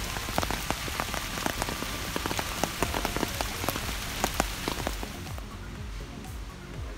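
Rain pattering in many irregular drops over a steady hiss. About five seconds in it gives way to a quieter, softer hiss with only scattered drops.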